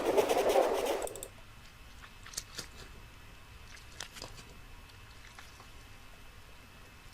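A loud, noisy rumbling sound effect from a Halloween sound pack, played back and cut off suddenly about a second in. After it come a few faint, sharp clicks.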